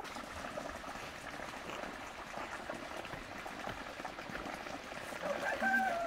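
Water trickling and splashing steadily. Near the end a rooster starts to crow.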